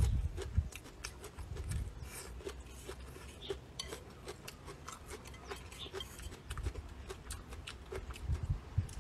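Chopsticks clicking and scraping against a ceramic bowl of fried rice, with chewing, picked up close by a clip-on microphone. There is a brief low rumble at the start.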